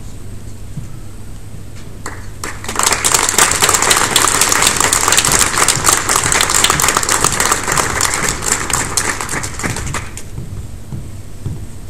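Audience applauding, starting about two and a half seconds in and dying away about seven seconds later.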